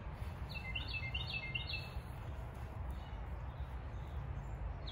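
A songbird sings one quick phrase of about five repeated notes, starting about half a second in, over a steady low rumble.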